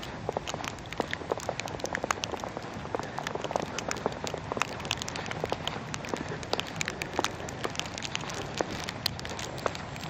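Heavy wet snow ticking and crackling irregularly against a tape-wrapped camera, several sharp ticks a second over a steady rushing haze.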